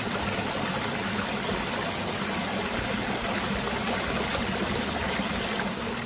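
Stream water rushing over rocks in a small cascade, a steady rush of water.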